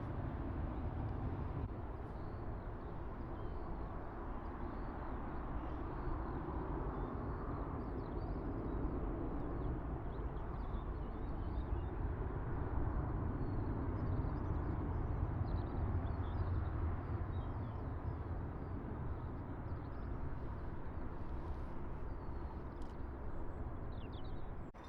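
Steady low rumble of distant aircraft noise at an airfield, swelling a little midway, with small birds chirping faintly throughout.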